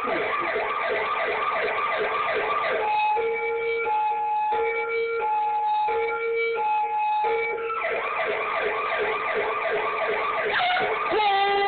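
Recorded emergency-vehicle siren played back: a fast warbling yelp for about three seconds, then a two-tone hi-lo pattern alternating about every 0.7 s, then the fast yelp again, settling into a long steady wail near the end.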